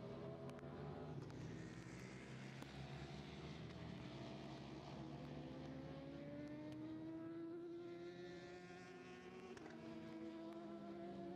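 Racing superbike engines running on track, more than one at a time: their pitch climbs steadily for several seconds, then drops near the end.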